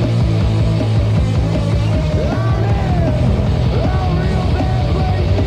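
Punk rock band playing loud and without a break, from a demo cassette recording. Pitches slide up and down over the top from about two seconds in.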